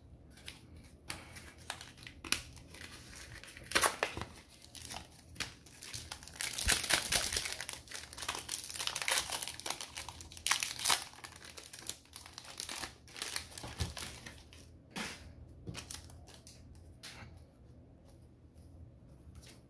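Foil wrapper of a Pokémon Sword and Shield booster pack crinkling and tearing as it is opened by hand, loudest about halfway through.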